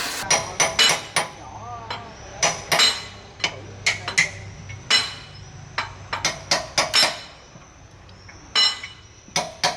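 Hammer blows on steel parts, irregular and closely spaced, each strike ringing briefly. The blows ease off for about a second and a half near the end before starting again.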